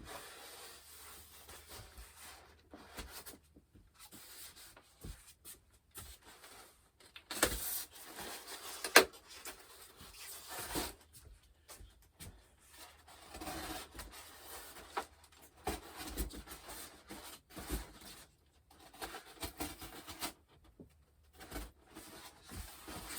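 A two-layer cardboard box of model-jet parts being handled and unpacked: irregular rubbing and scraping of packaging with scattered knocks, the loudest a sharp clack about nine seconds in.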